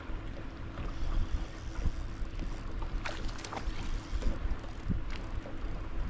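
Wind buffeting the microphone in a gusty low rumble, with small waves lapping at a bass boat's hull and a faint steady hum. A few light knocks come about three seconds in.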